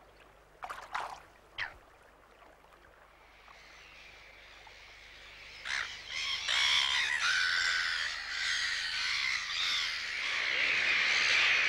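Black-billed gulls calling: a few separate calls in the first two seconds, then a dense chorus of many gulls that builds from about four seconds in and is loud from about six seconds on.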